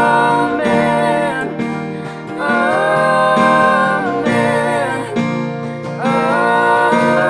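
Worship song passage without words: acoustic guitar strumming with keyboard, long held chords changing every second or two.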